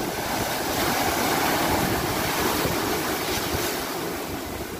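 Sea waves breaking and washing in foam among the shore rocks: a rush of water that swells about a second in and then slowly ebbs.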